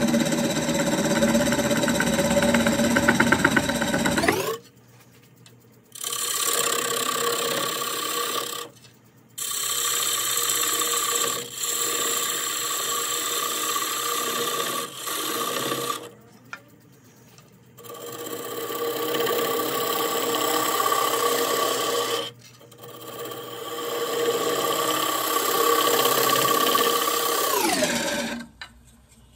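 Turning gouge cutting into a spinning walnut-and-cherry bowl blank on a wood lathe: a loud, steady cutting noise in several passes, broken by short pauses as the tool comes off the wood. Near the end the cutting stops and a whine falls in pitch.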